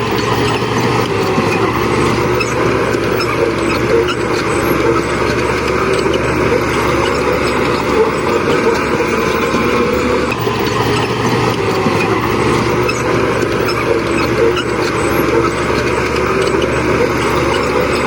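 Heavy diesel engines of bulldozers running steadily under load, with a constant low engine drone and clatter of machinery.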